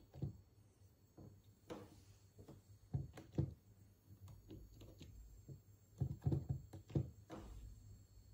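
Round push buttons on a digital cribbage board being pressed by a finger: a string of short clicks and soft thumps, irregularly spaced, with quick runs of presses about three seconds in and again about six seconds in.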